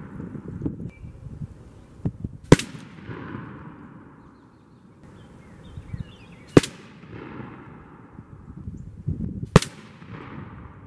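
Three shots from a .62-calibre cylinder-bore flintlock fowler firing black-powder turkey loads, heard from beside the target downrange. Each is a single sharp report that rings out into a fading echo. They come about two and a half seconds in, four seconds later, and three seconds after that.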